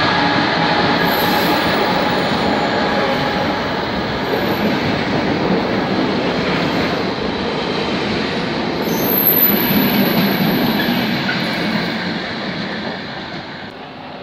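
Freight train of flat wagons loaded with concrete sleepers rolling past behind a Colas Class 66 diesel locomotive. The locomotive's engine note dies away in the first couple of seconds, then there is the steady clatter of wagon wheels on the rails, with a brief high wheel squeal about nine seconds in. The sound fades over the last couple of seconds as the train clears.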